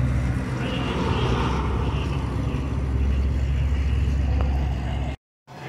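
A car engine running with a steady low rumble, cut off abruptly near the end.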